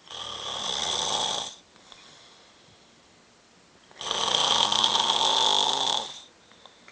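A man snoring loudly: two long snores about four seconds apart, the second longer than the first, with quiet breathing between them.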